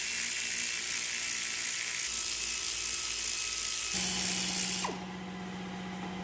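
Loud, steady, high-pitched insect buzzing that cuts off abruptly about five seconds in.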